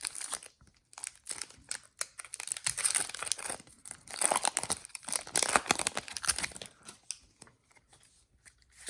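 A foil Pokémon card booster pack being torn open and crinkled: a run of irregular crackling rips, heaviest in the middle and dying away near the end.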